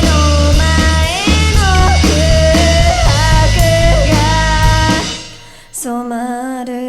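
Live rock band music with drums, bass and guitar under a gliding melody line. About five seconds in, the band falls away, leaving a single held note with vibrato.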